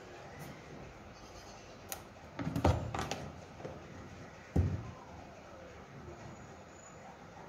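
Kitchen handling sounds on a stone countertop: a quick run of knocks about two and a half seconds in, then a single heavy thud about a second and a half later, as containers and utensils are picked up and set down.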